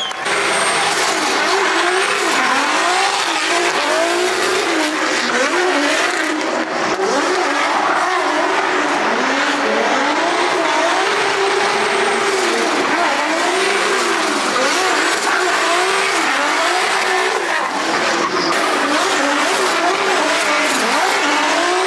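Drift cars sliding with tyres squealing, their engines revving up and down over and over as the drivers work the throttle through the slides.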